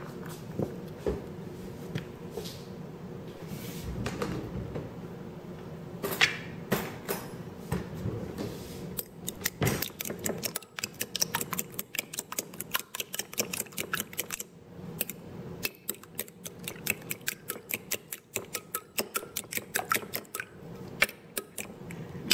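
Raw eggs being beaten with a metal fork in a glass bowl: rapid clicking of the fork against the glass. A few scattered clinks come first, and the fast beating starts about nine seconds in.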